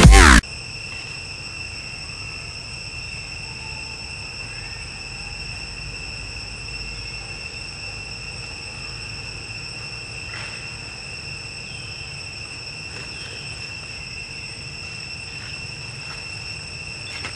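Steady high-pitched insect chorus droning without a break over a low outdoor rumble. The tail of an electronic music jingle cuts off about half a second in.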